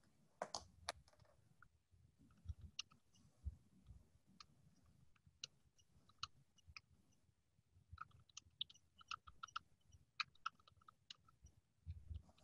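Near silence with scattered faint clicks, a denser run of them about two-thirds of the way through.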